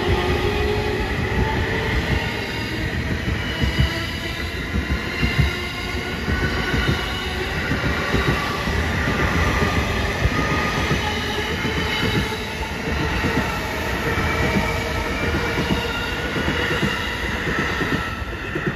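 JR East E231 series and E233 series electric multiple-unit train passing at speed: wheels rumbling over the rails, with the whine of its traction motor inverters as the train re-accelerates. The sound falls away near the end as the last car goes by.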